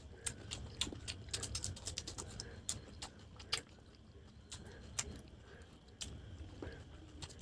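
A person eating chicken curry and fried rice close to the microphone: irregular sharp clicks of chewing and mouth noises, coming in quick runs with a sparser stretch in the middle.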